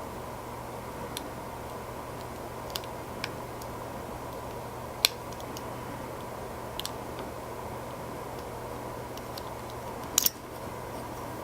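Scattered small metallic clicks of a lock pick working the pins of an American Lock 1100 padlock while feeling for the binding pins, with a sharper click about five seconds in and a quick double click near the end, over a steady background hum.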